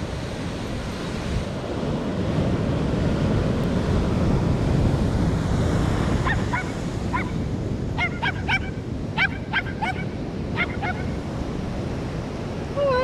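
Large ocean waves breaking below, a steady heavy rush of surf that swells in the first half. In the second half a bird gives a dozen or so short, sharp calls over about five seconds.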